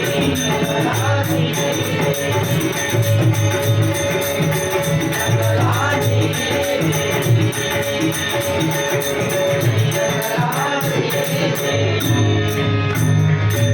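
Devotional bhajan music: a chorus singing with a drum and small hand cymbals keeping a steady, busy beat.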